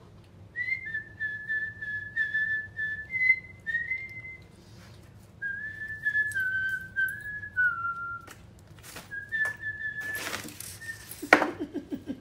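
A person whistling a simple tune in three short phrases, the pitch stepping up and down between notes. Faint clicks underneath, and a short burst of noise near the end.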